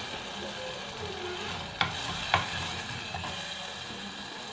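Steel ladle stirring raw mango pieces into a simmering curry in a clay pot, over a steady sizzling hiss. The ladle knocks sharply twice a little under two seconds in.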